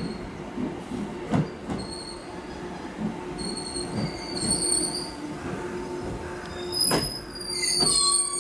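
A train moving slowly through the station: wheels squealing on the rails in short high-pitched bursts, strongest near the end, over a steady rumble and hum, with a few sharp knocks as wheels cross rail joints.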